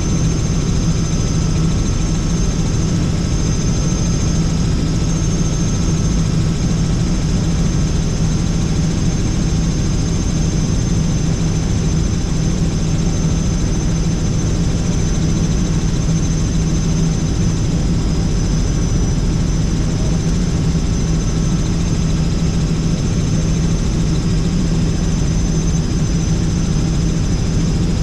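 Helicopter in cruising flight heard from inside the cabin: a loud, steady rotor and engine drone with a thin, steady high whine above it.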